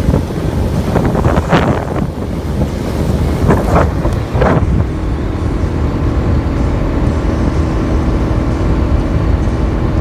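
A small motorboat under way: the motor's steady drone and the hull running through the water, with heavy wind buffeting on the microphone. A few short splashy surges come in the first half, and a steady hum from the motor stands out in the second half.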